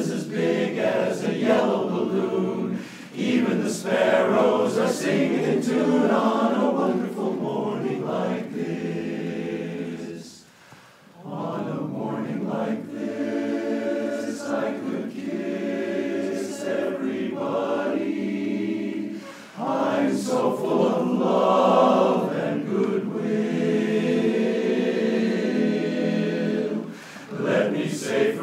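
Men's barbershop chorus singing a cappella in close harmony, in long sustained phrases. About ten seconds in the sound falls away briefly for a breath before the next phrase.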